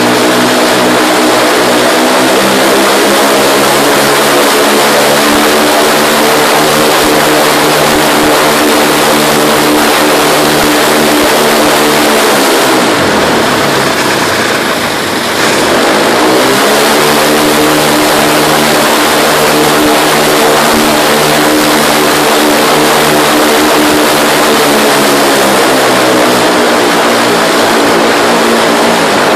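MWfly aircraft engine running at a steady speed on a test bench, its first run after assembly. About thirteen seconds in it slows, the pitch falling, then speeds back up within a few seconds and settles at the same steady speed.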